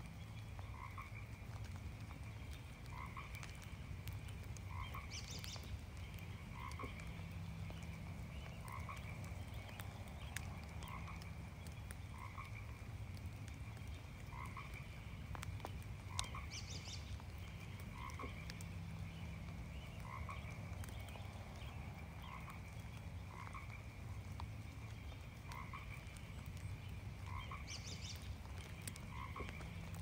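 Frogs calling in a chorus, short croaks repeating about once a second, over the soft patter of light rain.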